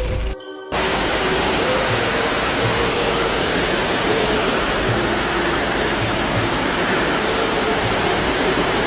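Loud, steady rush of floodwater, starting just under a second in after a brief drop-out.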